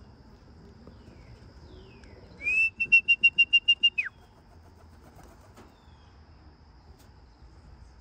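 A loud trilled whistle about two and a half seconds in: a short rising note, then a fast run of about eight pulses on one high pitch, ending in a quick drop — a pigeon fancier whistling to call his racing pigeons down to the loft. A faint steady insect drone runs underneath.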